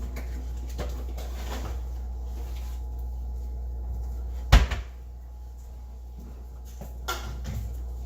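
A single sharp knock about four and a half seconds in, over a steady low hum, with a few faint clicks and rustles around it.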